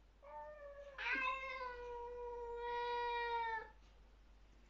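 A domestic cat's long, drawn-out warning yowl at another cat in a territorial standoff. The yowl starts quietly, swells sharply about a second in, holds a steady pitch for nearly three seconds and cuts off abruptly.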